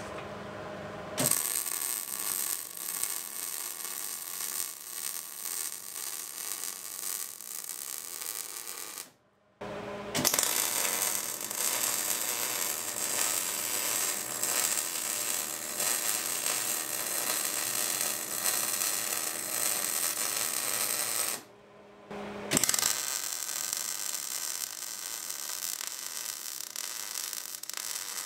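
MIG welding arc crackling and hissing as steel angle braces are welded onto a steel frame. It runs as three beads, with a short pause about nine seconds in and another about twenty-one seconds in.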